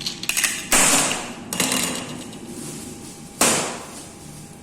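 Sharp knocks and clatter of metal parts while the angle grinder's disc is being changed: four sudden hits, each with a short fading ring, the loudest about a second in and a little past three seconds in.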